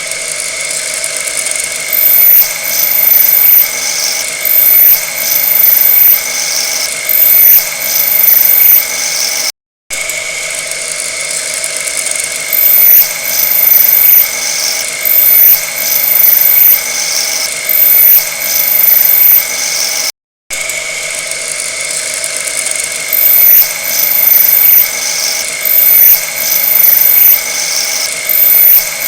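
A machine tool cutting metal, with a steady whine and a piercing high-pitched screech that swells and fades about once a second. The sound cuts out briefly twice.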